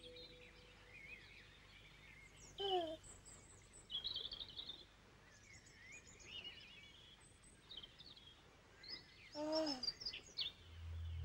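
Birds singing and chirping in a quiet outdoor ambience, with two short, lower falling calls, one about three seconds in and one near the end.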